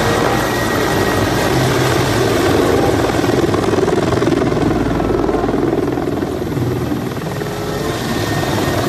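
Military attack helicopter flying low overhead: loud, steady rotor and engine noise, a little louder near the middle as it passes.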